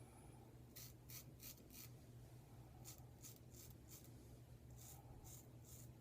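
Vintage Adoration square-tip straight razor scraping stubble off the face over a thin layer of lather-less cream: faint, short, crisp strokes, about four in each of three quick runs.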